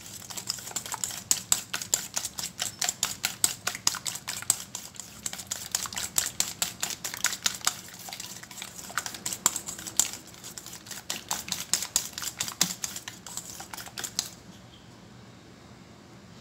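Wire whisk beating eggs and sugar in a stainless steel bowl: rapid, uneven clicking and scraping of the wires against the metal, stopping about two seconds before the end.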